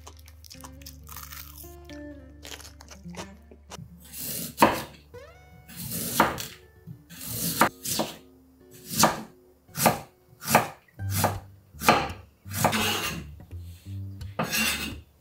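Chef's knife cutting daikon radish on an end-grain wooden cutting board. The crisp cuts come about every three-quarters of a second from about four seconds in, over soft background music.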